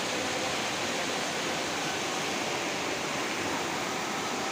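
Steady rushing of a flood-swollen river running fast over rocks, an even, unbroken water noise.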